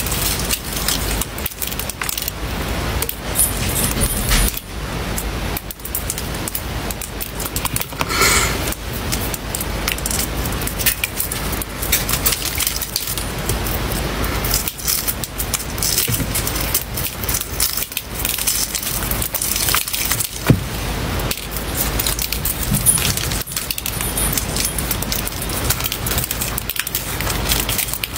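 Adhesive rhinestone face decoration being peeled off the skin: a dense, continuous run of small crackles and clicks as the stones and their backing pull away.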